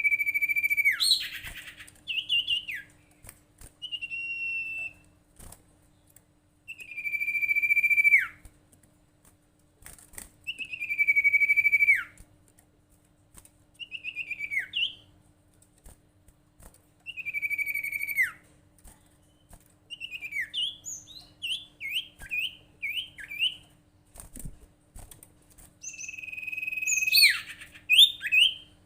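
Sirtu (iora) song: long whistled notes held steady and then dropping sharply at the end, repeated every few seconds, with a run of short quick chirps about two-thirds of the way through.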